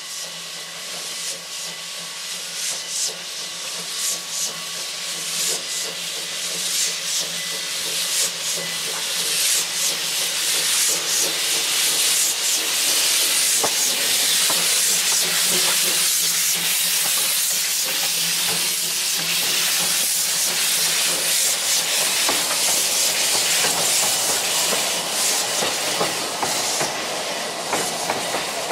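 The Iron Horse, a 1909 H.K. Porter steam locomotive, running past with steam hissing, its wheels and coach rolling on the rails. The sound grows louder over the first dozen seconds as it draws near, then stays loud.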